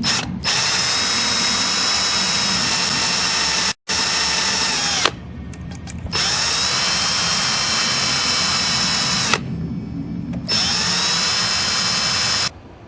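Electric drill with a small bit boring into a broken brass screw set in old wood, to make a hole for an easy-out. It runs with a steady whine in three spells of a few seconds each, with short pauses between them.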